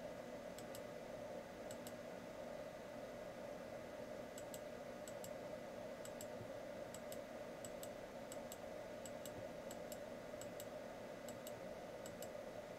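Computer mouse button clicking, many of the clicks in quick press-and-release pairs, as the Blender Cut brush is dragged over the hair. Faint steady hum of room noise underneath.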